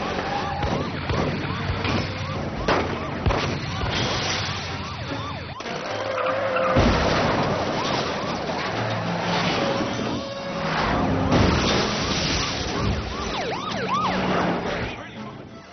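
Film soundtrack of a police car chase: police sirens wailing and car engines running, broken by sharp bangs and impacts.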